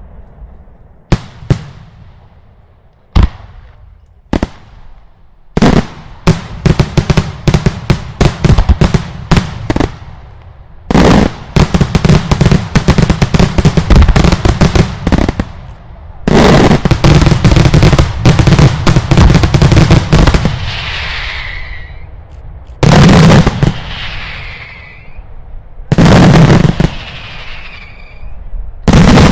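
Loud daylight fireworks: a few single sharp bangs, then long volleys of rapid-fire reports, each running several seconds. Near the end come three heavy, very loud blasts, each followed by a fading, falling hiss.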